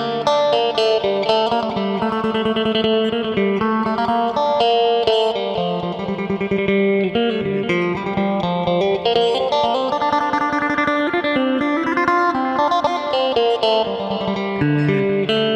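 Electric guitar played through a preset on a Boss GT-3 multi-effects processor, playing a melodic line of quick notes that change pitch continuously.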